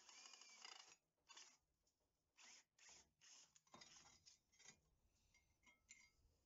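Cordless drill boring into a small steel plate, stopping about a second in, followed by a string of short, faint scrapes and rubs of metal.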